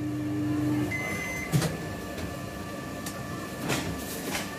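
Samsung microwave oven running with a steady hum that stops just under a second in, followed by a short beep; the door then unlatches with a sharp click, and a few lighter knocks follow as a bowl is taken out.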